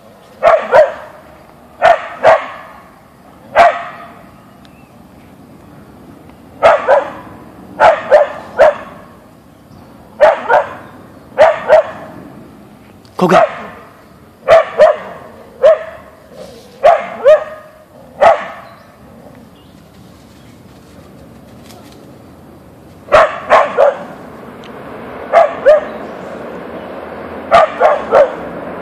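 Husky barking repeatedly at a deer, in quick groups of two or three sharp barks, with a few seconds' pause about two-thirds of the way through before the barking resumes.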